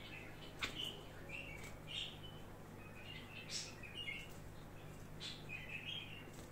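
Budgerigar chirping in short, scattered notes with a few sharp clicks, mimicking a bulbul's call.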